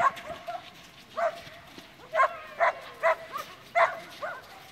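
A dog barking repeatedly: about eight short, sharp barks, spaced roughly half a second to a second apart.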